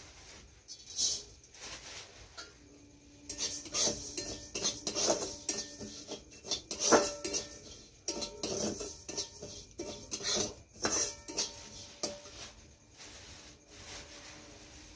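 A metal spatula clanking and scraping against a metal wok as noodles are stir-fried: a quick, uneven run of knocks and scrapes, the wok ringing briefly after the harder strikes. It is busiest from a few seconds in until about two thirds of the way through.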